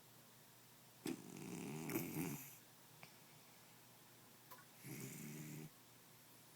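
A domestic cat snoring in deep sleep: two snores, a longer one starting about a second in and a shorter one about five seconds in.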